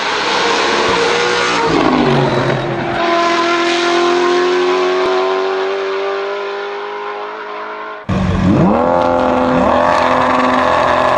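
A Brabham BT62 race car's engine goes by at high revs, dropping in pitch about two seconds in, then runs on steadily and slowly fades as it pulls away. About eight seconds in, a Lamborghini Aventador SVJ's V12 revs up sharply and is held at high revs, ready to launch.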